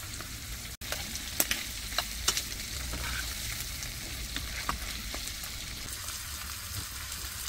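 Butter-fried shrimp and sliced garlic sizzling steadily in a nonstick frying pan on a portable gas stove, with a few sharp clicks and pops as the pan is stirred, over a low steady rumble.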